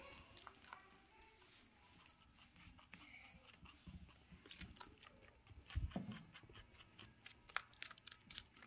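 Dwarf rabbit chewing a piece of raw vegetable held out by hand: faint, quick chews at several a second, coming thicker in the second half, with one soft low thump just before six seconds in.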